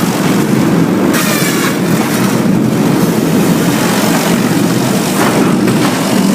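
Sawmill machinery running with a loud, steady mechanical rumble.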